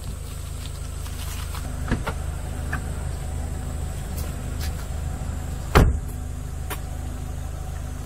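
Kia Soul idling steadily, with a few light clicks as the passenger door is opened and one loud thump of the door being shut about six seconds in.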